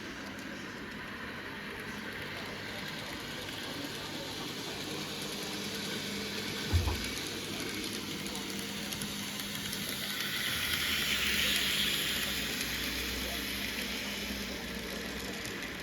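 Model train running on the layout: a steady running noise with a single knock about seven seconds in and a hiss that swells between about ten and thirteen seconds.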